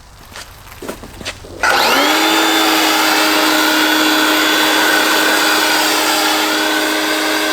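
A few clicks, then an electric pressure washer motor starts about a second and a half in. Its pitch rises briefly, then it runs steadily with a hiss of spray as it sends foam from a foam cannon over a car. It cuts off near the end.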